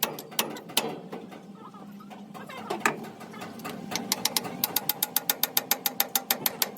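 A few scattered sharp clicks, then from about four seconds in a fast, even run of sharp taps, about seven a second, over a faint steady hum.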